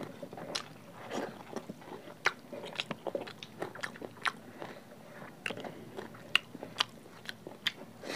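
Close-miked chewing of egg curry with rice eaten by hand: a dense run of short, sharp mouth clicks, several a second.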